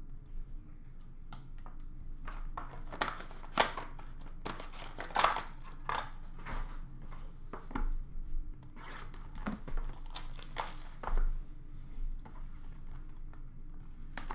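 Foil trading-card pack wrappers crinkling and tearing as hockey card packs are ripped open by hand, in irregular bursts of crackling.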